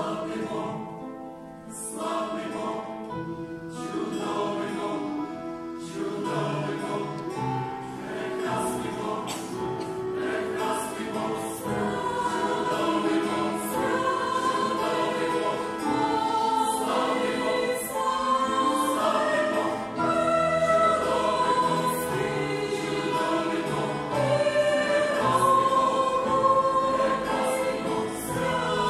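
Mixed choir of men's and women's voices singing a hymn, accompanied by acoustic guitar and clarinet, swelling gradually louder.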